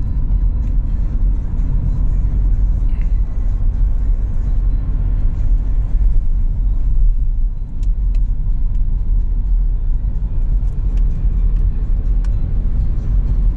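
Steady low road rumble inside a moving car's cabin: tyre and engine noise while driving along an open road.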